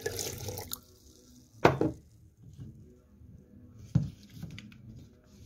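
Hot tea being poured into a glass carafe of sliced ginger, the stream stopping under a second in. It is followed by a sharp knock about a second later, the loudest sound, and a lighter knock near the end, from the vessels being handled and set down.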